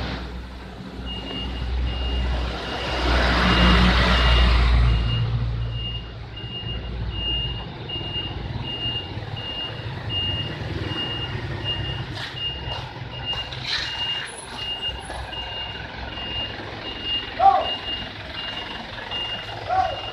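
Reversing alarm on an Isuzu Elf minibus, sounding an evenly repeated high beep over the low running of the vehicle's engine. The engine is loudest in the first few seconds, with a swell of rushing noise about three to five seconds in, and a short loud sound stands out later on.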